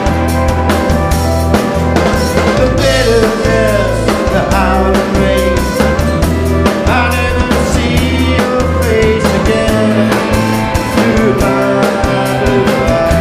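A live rock band playing: drum kit keeping a steady beat under electric and acoustic guitars and a bowed fiddle.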